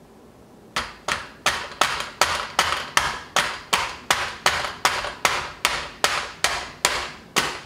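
Rubber mallet tapping a metal pin back into a field tripod's leg clamp: about twenty quick, even strikes, roughly three a second.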